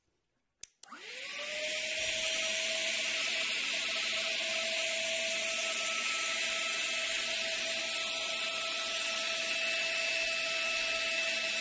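Cordless mini handheld vacuum cleaner switched on with a click, its motor spinning up within about a second and then running steadily with a high whine over a hiss of air.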